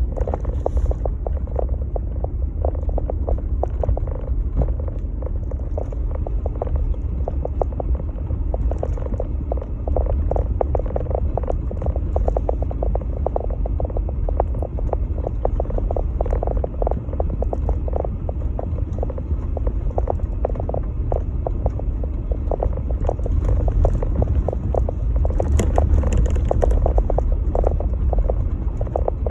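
Jeep Gladiator driving on a snow-covered trail: a steady low rumble of engine and tyres, with a rapid, continuous clatter of small knocks and rattles.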